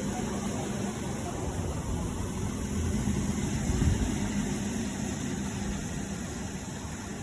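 Motor of a carpet-cleaning machine running steadily, a constant hum over a low rumble that swells a little about halfway through.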